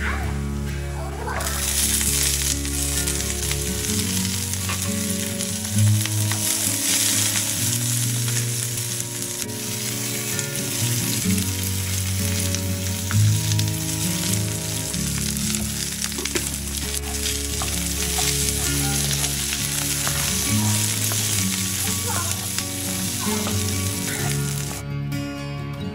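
Peanuts, green chillies and split gram frying in hot oil in a nonstick pan, sizzling steadily while stirred with a wooden spatula. The sizzle starts about a second and a half in and stops just before the end, over quiet background music.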